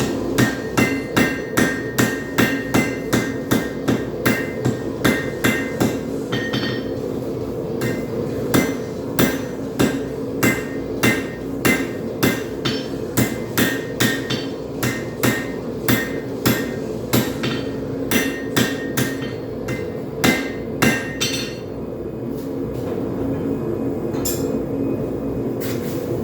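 Hand hammer striking a hot railroad spike on an anvil, about two to three ringing blows a second, to straighten the forged blade. The blows stop a few seconds before the end, leaving a steady hum.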